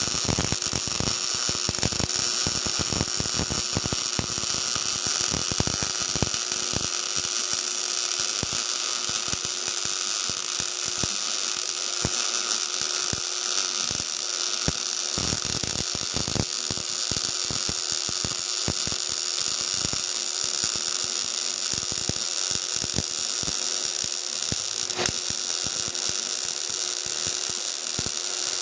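MIG welding arc with CO2 shielding gas, a steady crackling buzz of rapid short-circuits between the wire and the work, running without a break.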